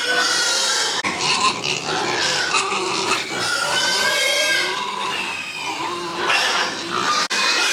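Pigs calling, a dense loud mix of grunts and squeals, broken by abrupt cuts about a second in and near the end.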